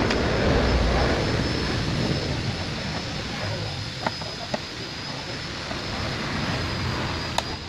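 Steady rushing background noise, like distant traffic, with a few light plastic clicks of electrical connectors being pushed back onto the engine.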